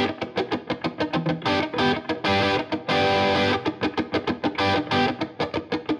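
Outro music led by an electric guitar: quick, rhythmic picked notes, about four or five a second, with a few longer held chords.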